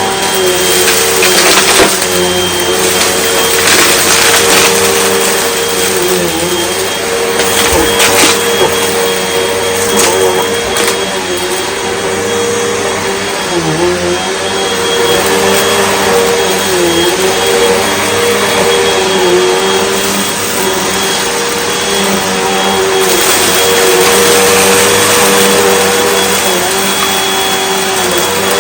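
Hoover Elite Rewind UH71013 bagless upright vacuum cleaner running steadily while picking up a large spread of dirt. Its motor whine dips briefly in pitch a few times as the load changes. Occasional clicks and crackles come from debris being sucked up.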